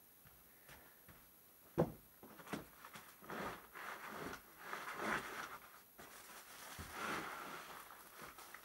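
A sharp knock about two seconds in, then irregular rustling and scraping as a plastic-wrapped laser engraver is worked and slid out of its wooden crate.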